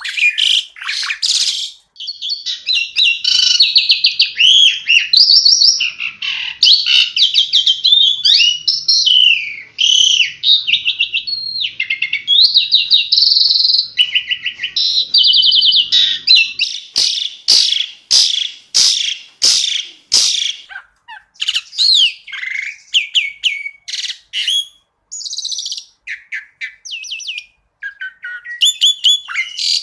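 Asian pied starling (jalak suren) singing a fast, varied song of rapid trills, whistled glides and sharp clicking notes, thinning to scattered clicks and short phrases for several seconds past the middle before picking up again near the end.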